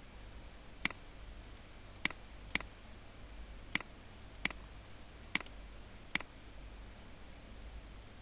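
Computer mouse button clicking seven times at an uneven pace, single sharp clicks, over a faint low hum.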